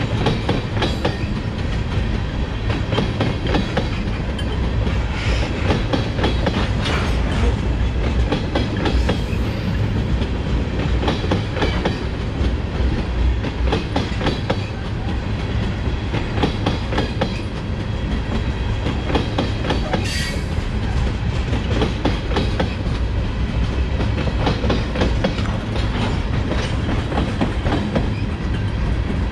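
Freight train cars rolling past, their steel wheels clacking over the rail joints above a steady low rumble.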